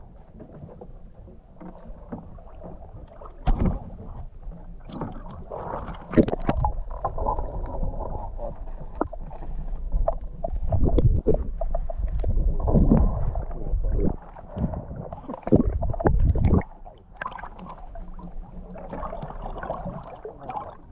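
Sea water sloshing and gurgling around an action camera dipped in and out of the water beside a wooden outrigger boat as a fishing net is hauled, with irregular splashes and knocks against the hull. It is loudest through the middle stretch and eases near the end.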